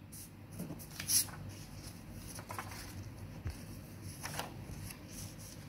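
Faint rustling and scraping of a paper pattern being slid and handled over fabric, a few soft strokes a second or so apart.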